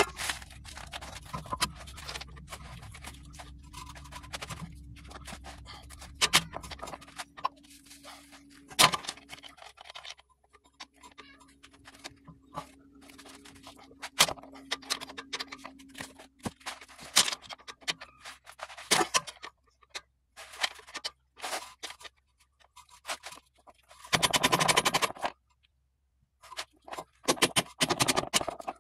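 Scattered metal clicks, knocks and scrapes from a pry bar working at a stuck inner CV joint hub seated in a transmission output. Two longer rasping scrapes come near the end.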